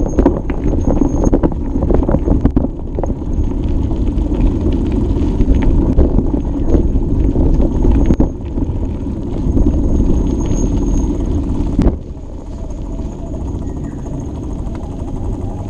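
A bike being ridden on a rough trail: a steady low rumble of tyres and wind on the microphone, with many clicks and rattles from the bike. The noise eases about twelve seconds in.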